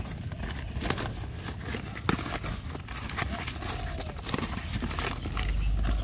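A taped cardboard shipping box being torn and pulled open by hand, with irregular crackling rips of tape and cardboard. A low rumble builds near the end.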